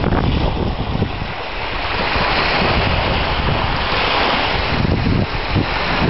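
Small Black Sea waves breaking and washing up a sandy, shelly beach, a steady surf hiss that swells about two seconds in. Wind buffets the microphone, adding a low rumble.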